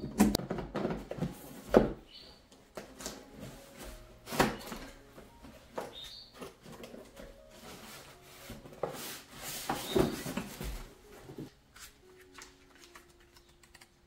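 Clicks and knocks of a plastic folding storage box's drop-down front door being opened, shut and handled, the sharpest knock about two seconds in, then cardboard packaging being opened and handled. Faint background music plays under it.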